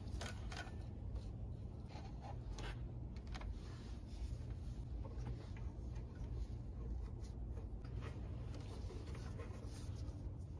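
Faint handling noises: a borescope cable rubbing and scraping with light clicks as it is worked into the engine's intake port, over a low steady hum.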